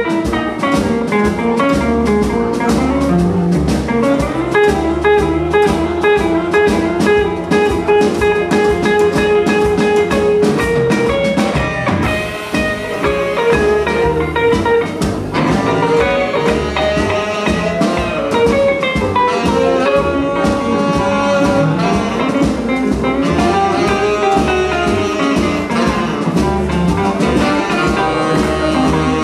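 Live blues band playing: electric guitar taking the lead over bass and drums, with a steady beat.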